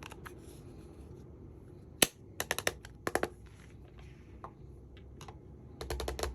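Small hard plastic parts of a makeup kit or jewelry being handled, clicking and tapping. There is one sharp click about two seconds in, a few quick clicks after it, and a fast run of clicks near the end.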